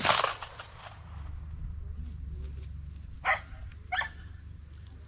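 A single loud shotgun shot right at the start, its report trailing off over almost a second, then a dog barks twice, about three and four seconds in.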